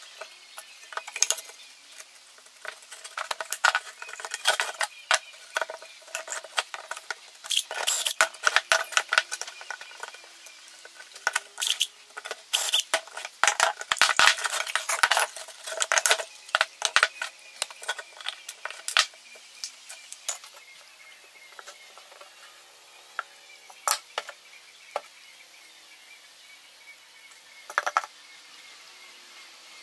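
Wooden-handled hand tool scraping and clicking against a pallet board's edge in quick, irregular strokes for the first twenty seconds, then only a few scattered taps.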